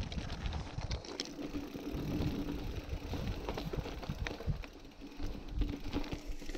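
Giant Trance full-suspension mountain bike rolling over a rocky limestone trail: tyres crunching over rock and loose stones, with many small clicks and knocks as the bike rattles, over a steady low rumble.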